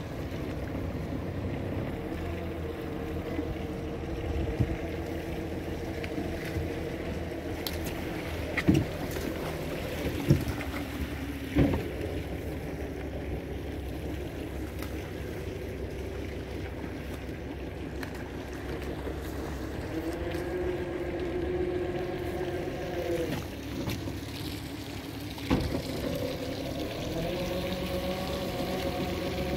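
A small tour boat's engine running slowly with a steady hum. Its note lifts for a few seconds about two-thirds of the way through. A few sharp thumps stand out, the loudest about a third of the way in.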